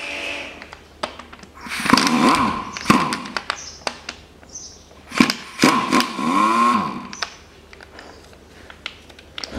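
Pneumatic impact wrench rattling in two bursts, about two and five seconds in, its pitch rising and falling with each run, as it breaks loose the camshaft sprocket bolts on a Mitsubishi 4B10 engine. Light knocks of the tool being handled come in between.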